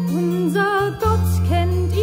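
A youth choir recording of a German sacred song: a sung melody with vibrato moving note to note over sustained low accompaniment notes.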